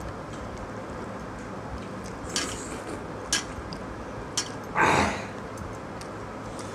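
Eating with the hands from steel dishes: fingers working watered rice in steel bowls, with a few sharp clinks of steel bowls and plates. A louder, longer noisy sound about five seconds in stands out over a steady hiss.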